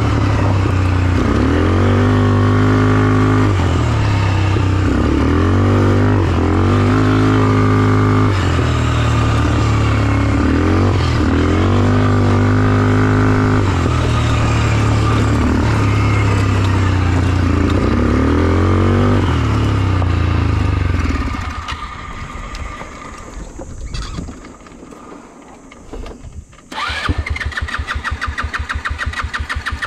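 ATV engine running with repeated revs rising and falling, then dying suddenly about two-thirds of the way through. Near the end the starter cranks it in quick, even beats to restart it. The rider blames the stalling on running out of fuel or a dying battery.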